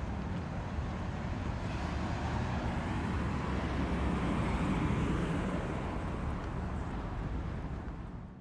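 Steady outdoor background noise, a low rumble under a hiss, that swells slightly and then fades out at the very end.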